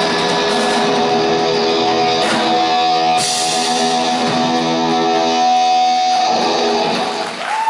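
Live rock band with electric guitars holding a final sustained chord, the closing chord of the song; it rings out and dies away about six seconds in.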